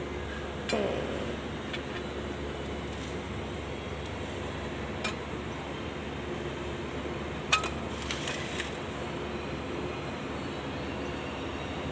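Light metallic clicks and clinks from a steel propeller shaft and its splined coupling sleeve being handled and fitted together by hand. There are a handful of clicks, the sharpest about seven and a half seconds in, over a steady low background hum.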